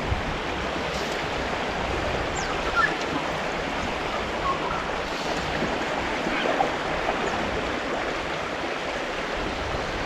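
Steady rushing of a fast-flowing river, the Goulburn running high.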